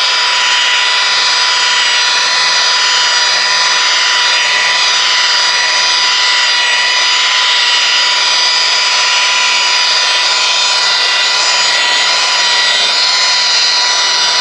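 Variable-speed rotary polisher running steadily at about 1400 RPM with a wool compounding pad cutting the paint: a steady motor whine with a high-pitched edge.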